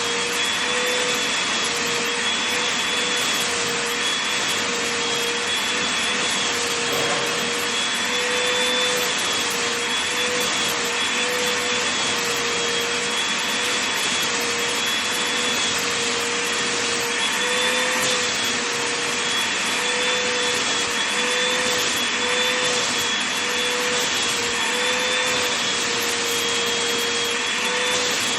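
Vacuum cleaner running steadily over a blanket, its motor giving a constant whine that wavers slightly in pitch over a steady rush of suction.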